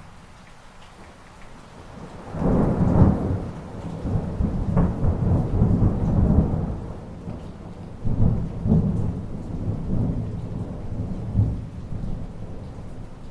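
Rolling thunder over steady rain: a long low rumble starts about two seconds in, swells several times and dies away near the end.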